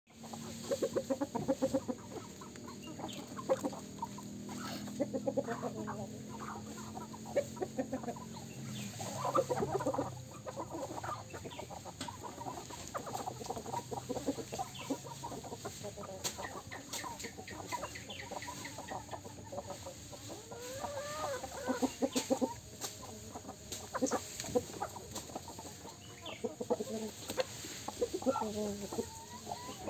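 A flock of chickens clucking over and over as they peck at feed, with a few longer rising and falling calls later on. A low steady drone underneath fades out about ten seconds in.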